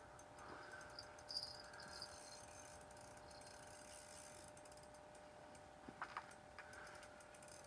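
Near silence: a faint steady hum with a few light clicks, one about a second in and a pair near six seconds.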